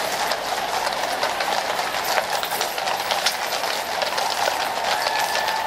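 Many shod cavalry horses' hooves clattering on a tarmac road as a mounted troop passes close by, the strikes overlapping irregularly.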